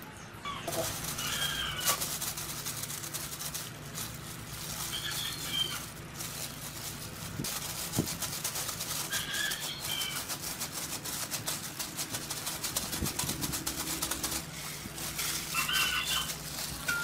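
Minced pork mixture being squeezed and kneaded by a plastic-gloved hand in a steel bowl, with soft squelches, crinkles and small clicks. A bird calls four times in the background.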